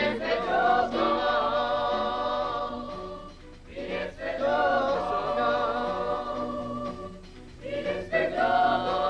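A group of voices singing a song in chorus, holding long notes with vibrato. The song comes in three phrases, with short breaks about three and a half seconds in and about seven and a half seconds in.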